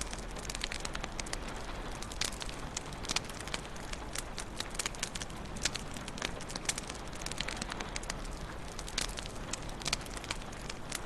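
Wood fire in a fireplace crackling, with many irregular sharp pops and snaps over a soft steady hiss of the flames.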